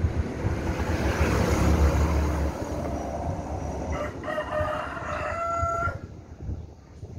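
A rooster crows in the background, one long, pitched, drawn-out call from about four seconds in that lasts about two seconds. Before it, a loud low noise fills the first two and a half seconds.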